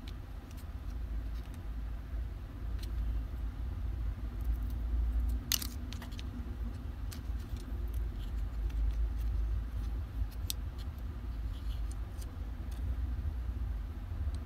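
Scattered light clicks and taps from hands working with parts and tools, with one sharper click about five and a half seconds in, over a steady low rumble.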